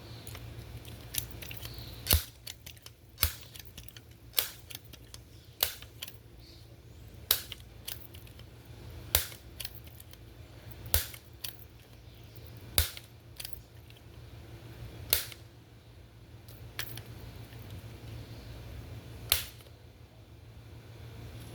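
Crosman multi-pump pneumatic air rifle being pumped: about ten sharp clacks of the pump lever, one every one to two seconds, charging the rifle for a shot. A low steady hum runs underneath.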